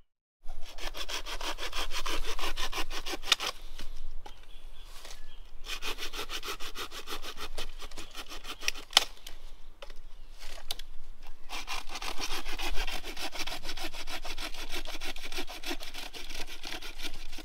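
Hand pruning saw cutting through a wooden branch: fast back-and-forth strokes in runs of a few seconds, broken by short pauses.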